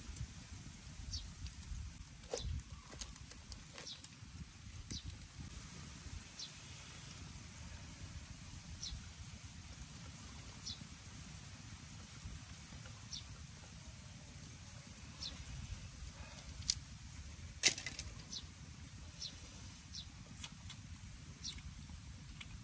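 Outdoor ambience: a low wind rumble on the microphone and a bird giving short high chirps every second or two. A few sharp clicks come from wooden skewers being handled, the loudest about 17 seconds in.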